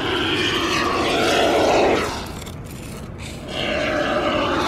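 A can of expanding spray foam spraying through its straw nozzle into a crack in the subfloor insulation, in two bursts: the first stops about two seconds in, and the second starts about a second and a half later.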